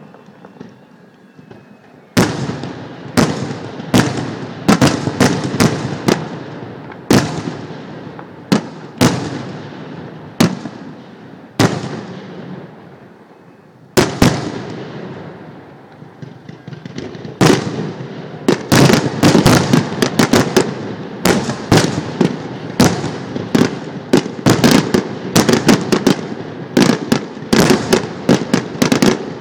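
Aerial fireworks shells bursting: single loud bangs about a second apart, each trailing off, then a short lull and one more bang. From about two-thirds through comes a dense, rapid barrage of bangs as the finale builds.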